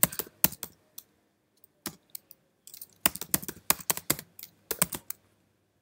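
Typing on a computer keyboard: keystrokes entering a terminal command, in uneven bursts, with a fast run of keys from about three seconds in.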